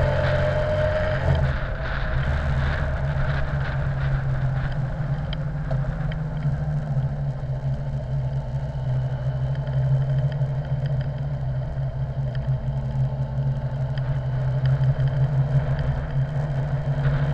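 Honda X4 motorcycle's inline-four engine running steadily while riding along a city road, a continuous low drone with wind and road noise on the bike-mounted camera's microphone. A higher tone sits over it at the start and fades out about a second in.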